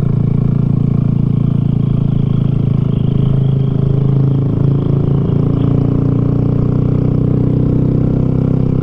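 Honda Grom 125 cc single-cylinder motorcycle engine running steadily at riding speed. Its note shifts slightly around the middle as the throttle changes.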